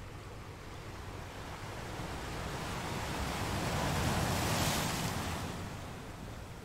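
A soft rushing whoosh that swells to a peak about four and a half seconds in and then fades away, like a wave rolling in, over a steady low rumble.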